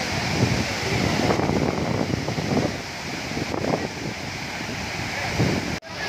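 Steady rush of a tall waterfall's water crashing into its plunge pool, with wind buffeting the microphone in uneven gusts. The sound cuts out for an instant near the end.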